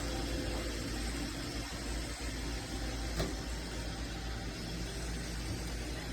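Roomba robot vacuum running: a steady motor and suction hum over a low rumble, with a single click about three seconds in.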